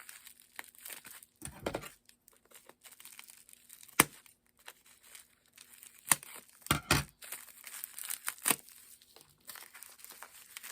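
Packing material being crinkled and torn by hand as an item is unwrapped. The rustling is scattered, with one sharp crackle about four seconds in and a few more later on.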